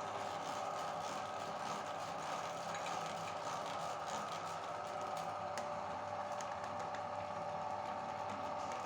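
Electric meat grinder running steadily, grinding chocolate: a constant motor whine with faint scattered clicks from the gears and auger.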